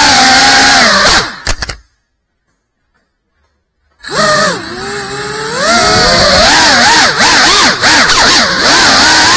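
GEPRC CineLog 35 cinewhoop's brushless motors and ducted propellers whining, the pitch rising and falling with throttle. The sound dies away about a second in and is silent for about two seconds, then spins back up and warbles quickly up and down as the drone maneuvers.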